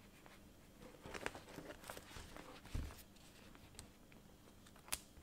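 Hands handling leather traveler's notebooks stuffed with paper inserts: soft rustling and small clicks, a low thump a little before the middle, and one sharp click near the end.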